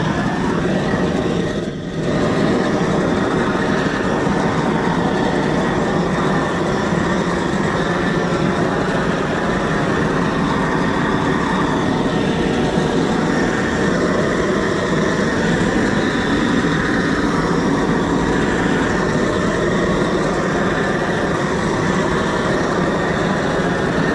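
Hand-held gas torch burning with a loud, steady rush of flame, played over red cedar to char its surface; the noise dips briefly about two seconds in.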